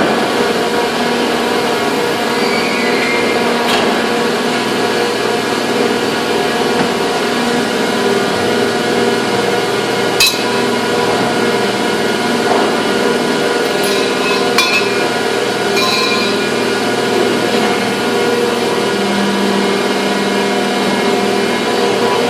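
Steady hum of factory machinery holding several fixed tones, with a few sharp metal knocks and clicks from work on a moulding machine during a mould change.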